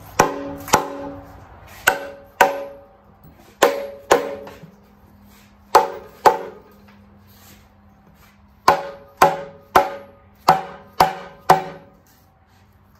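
Dead blow hammer striking a Jaguar V12's oil sump to knock it loose from the sandwich plate, about fourteen blows. The blows come mostly in pairs, then a quicker run of six near the end, each with a short metallic ring. The sump stays stuck because it has been glued on with silicone sealant.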